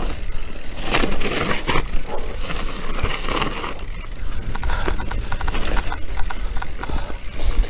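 Enduro mountain bike riding down a dirt forest singletrack: tyres rolling over the ground, with frequent rattles and clicks from the bike, and wind rumbling on the microphone.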